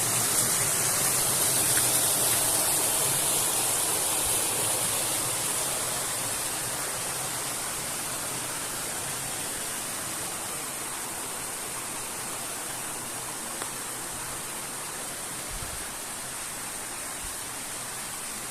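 Steady rushing water from a waterfall stream, growing gradually quieter over the first half.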